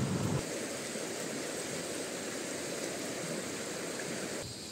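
Shallow river rushing over rocks, a steady noise of running water. A low rumble drops away about half a second in, and the sound gets a little quieter near the end.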